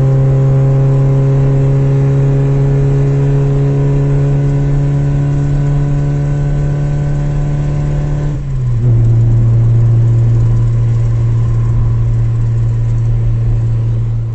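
Car engine running steadily under way, a loud even drone that sags slightly in pitch. About eight seconds in there is a brief dip and the engine note steps down to a lower steady pitch, as at an upshift.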